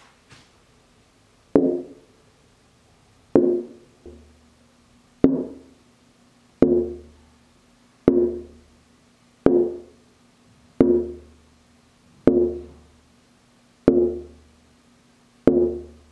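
A carved wooden mandocello back plate being tapped for tap tuning, about every one and a half seconds. Each tap is a sharp knock followed by a ringing tone that dies away within a second. The tone sits near B flat and is still sharp of the B flat target, so wood has yet to be removed.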